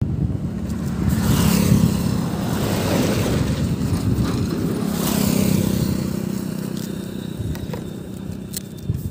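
Rustling, scraping and a few sharp clicks as padded motorcycle riding gloves are pulled on and their straps fastened, over a steady low vehicle rumble that swells twice.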